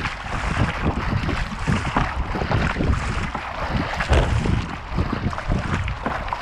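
Water rushing and splashing past a kayak's hull as it is paddled fast, with uneven wind buffeting on the deck-mounted microphone.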